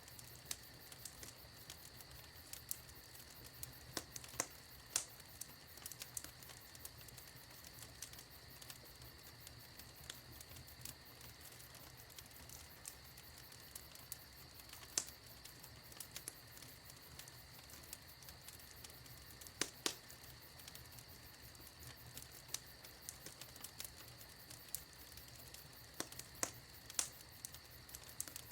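Fire in a fireplace crackling: irregular snaps and pops over a faint steady hiss, with a handful of louder pops standing out.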